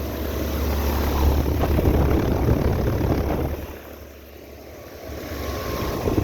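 Two running central air conditioner condenser units: the outdoor fans whooshing over a low hum, fading for a couple of seconds in the middle and growing louder again near the end.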